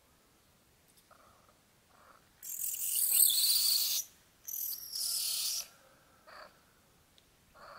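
Two loud bursts of high-pitched insect buzzing. The first lasts about a second and a half, and the second, about half a second later, lasts about a second.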